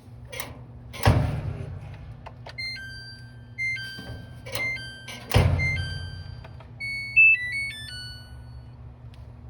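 Samsung dryer running with its control board sounding a tune of stepped electronic beeps, over a steady low hum. Two heavy thumps come about a second in and about five seconds in.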